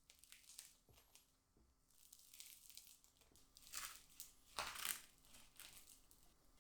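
Quiet, crisp crunching and crinkling as a filled sandwich is handled, with two louder crunches about four and five seconds in.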